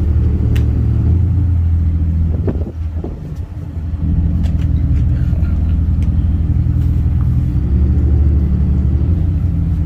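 Car engine and road noise while driving: a steady low hum that drops briefly about three seconds in and then picks up again.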